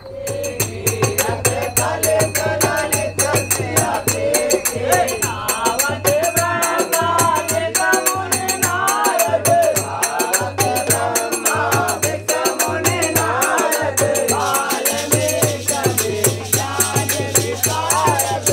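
Background music with a fast rattling shaker rhythm, a melodic line and a pulsing bass beat.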